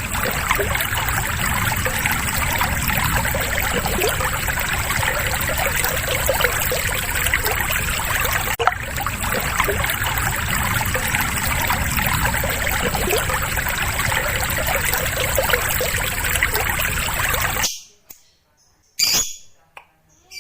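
A steady rush of running water with small bird chirps mixed through it, cutting off suddenly near the end. A short bird call follows just before the end.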